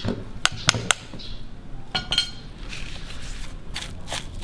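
A spoon clinks sharply against a stone mortar and pestle several times as shrimp paste is scraped off it, one clink ringing briefly about two seconds in. Then come softer, duller strokes of the pestle working the paste into the wet green curry paste.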